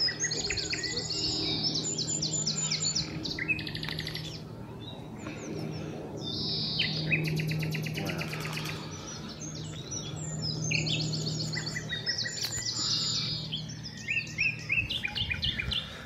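Common nightingale singing: phrases of rapid repeated notes and trills, broken by short pauses, with a low steady hum underneath.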